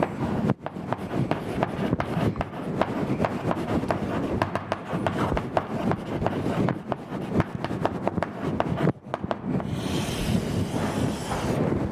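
Chalk writing on a blackboard: a quick run of taps and scratches as the words are written, then a longer, smoother scrape near the end.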